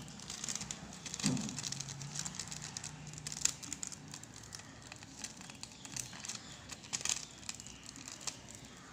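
Butter paper (baking parchment) being peeled slowly off a heat-pressed, cling-film-covered photo on a T-shirt, crinkling and crackling with many small ticks as it lifts.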